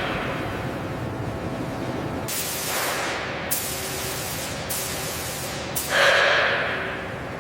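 Short bursts of hissing spray or escaping air over a steady rushing noise, with a louder, longer hiss about six seconds in that fades away.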